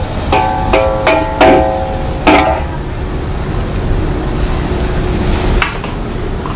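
Metal spatula striking a wok during stir-frying of mee goreng: about five ringing metallic clangs in the first two and a half seconds. A steady low rumble from the wok's gas burner runs under them.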